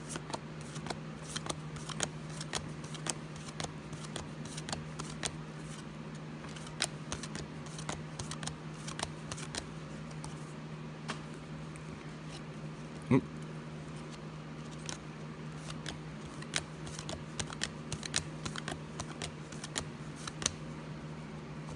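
A stack of football trading cards being thumbed through by hand: a run of quick, irregular light clicks, a few a second, over a steady low hum. There is one louder knock about halfway through.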